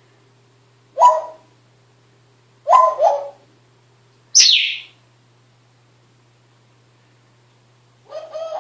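A pet parrot making short calls: one about a second in, a two-part call near three seconds, a quick falling whistle about four and a half seconds in, and a softer call near the end.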